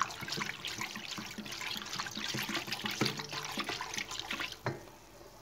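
A whisk stirring warm milk with dry yeast in an enamel bowl: the liquid swishes and sloshes with quick irregular strokes. A sharper knock comes near the end, after which the stirring stops.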